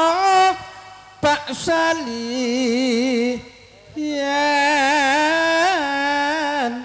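A singer's voice in a traditional gending, holding long melismatic notes with a wide, wavering vibrato. It comes in several long phrases with short pauses between them.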